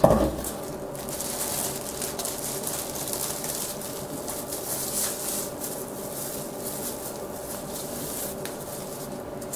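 Bubble wrap and plastic packaging rustling and crinkling as a laptop keyboard is handled and unwrapped, over a steady low hum, with a short thump right at the start.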